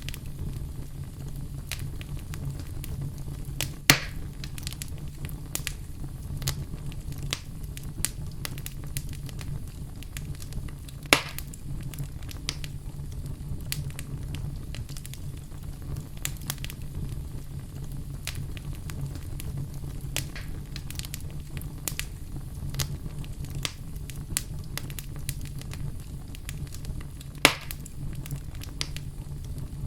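Fire in a fireplace crackling over a steady low rumble, with frequent small ticks and three loud sharp pops spread through.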